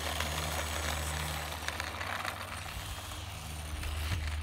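Electric ducted fan of an E-flite F-16 Falcon 64mm RC jet running steadily at low taxi power.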